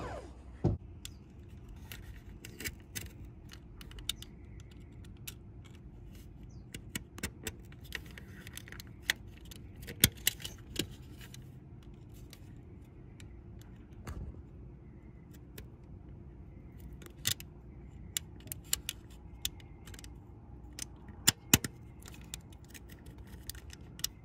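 Small clicks, taps and light scrapes from a hand tool working a slit into the rubber gear oil supply hose up against its metal fitting, scattered irregularly with a few sharper clicks, over a faint low hum.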